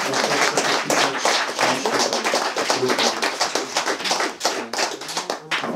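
Audience applauding: a dense patter of hand claps that thins out and stops near the end.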